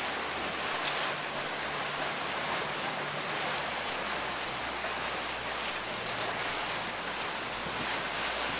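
Steady rush of water from a sailboat's bow wave and wake churning close by, with wind noise, and a few brief louder splashes.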